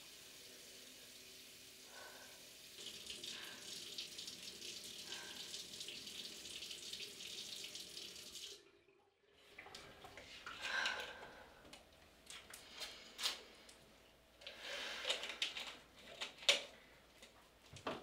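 Bathroom sink tap running steadily, starting about three seconds in and cutting off abruptly partway through. Afterwards, scattered small knocks and rustles.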